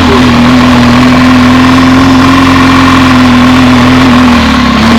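Vehicle engine running at a steady pitch under way, dipping slightly about four and a half seconds in.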